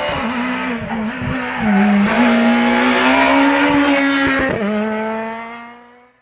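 Škoda Fabia S2000 rally car's naturally aspirated 2.0-litre four-cylinder engine at high revs. The revs dip sharply with quick gear changes about a second and a half in and again near four and a half seconds, climbing after each, and the engine fades as the car accelerates away.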